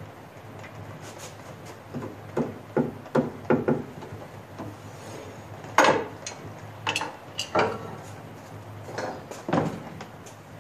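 Metal clanks and knocks from an arbor press and a transmission case being handled on it while bearings are pressed in. A quick run of light knocks comes about two seconds in, then a few louder single clanks, over a low steady hum.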